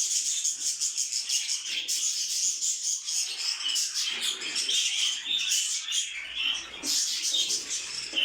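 Many small caged birds chirping and twittering together in a dense, continuous, high-pitched chatter.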